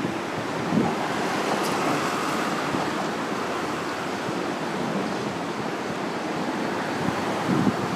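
Steady rushing of river water, an even noisy wash without pitch. A couple of brief low thumps sound over it, about a second in and again near the end.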